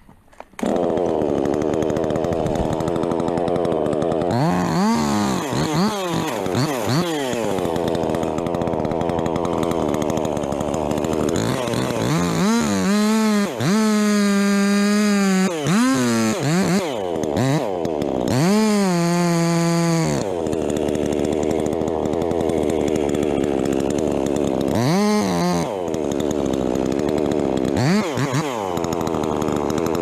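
Chainsaw engine running and being revved repeatedly: its pitch swings up and back down many times and is held at full throttle for a second or two at a time. It starts about half a second in.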